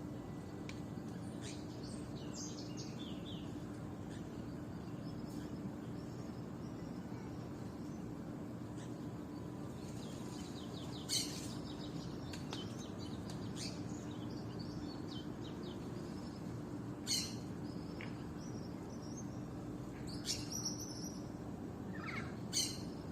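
Small birds chirping and twittering, with a few louder, sharp calls scattered through, over a steady low background rumble.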